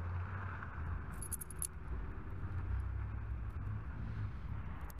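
A steady low outdoor rumble, with a few faint light metallic clicks about a second and a half in as a battery cable terminal is handled.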